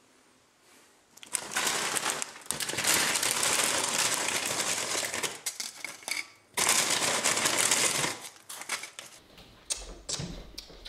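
A plastic Ruffles chip bag crinkling and potato chips rattling out of it onto a plate: a long, loud crackle starting about a second in, then a second shorter burst after a brief pause.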